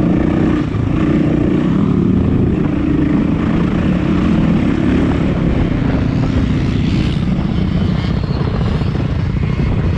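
Enduro motorcycle engine running at low to middling revs, heard up close from the bike itself, its note stepping up and down with the throttle.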